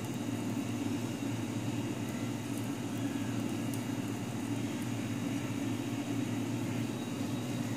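A steady low mechanical hum with a faint hiss, unchanging throughout.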